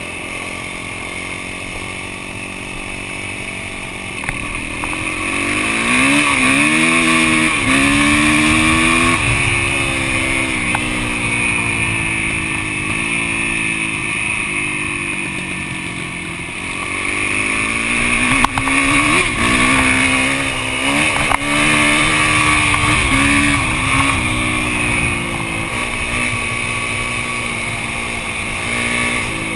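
Yamaha YZ450F's single-cylinder four-stroke engine running under the rider, with revs climbing through the gears about five seconds in and again around eighteen seconds, then holding a steady cruise between. A couple of sharp clicks cut through near the middle.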